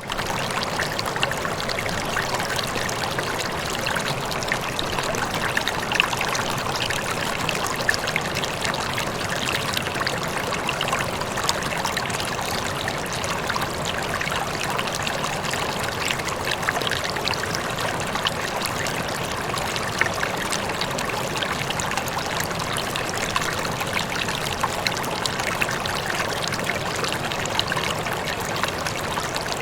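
Rippling water trickling steadily, with many small splashes and droplets, fading in at the very start.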